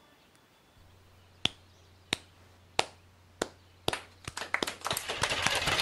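Slow, evenly spaced single hand claps, about one every two-thirds of a second, then more clapping joins about four seconds in and builds quickly toward applause. A faint low hum sits underneath.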